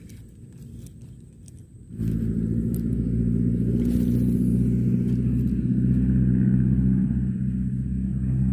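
An engine running with a loud, low, steady hum that starts abruptly about two seconds in.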